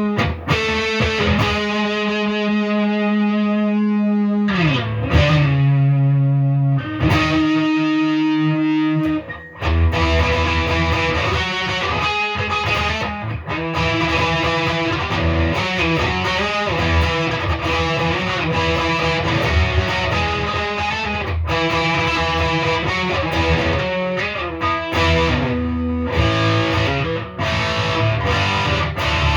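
Gibson Les Paul 50s Standard with P90 pickups played with distortion. Long held notes with a pitch dip about four seconds in give way, about ten seconds in, to a busy hard-rock riff.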